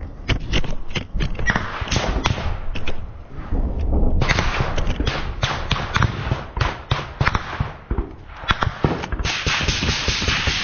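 Small-arms gunfire in a firefight: many close shots in quick, irregular bursts, with rustling and knocks of movement against the microphone between them.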